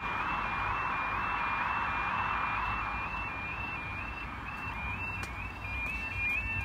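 UK level crossing warning alarm sounding as the road lights go from amber to red: an electronic two-tone yelp, stepping between a lower and a higher pitch about one and a half times a second. Near the end a second alarm joins out of step with it. A rushing noise underneath fades over the first few seconds.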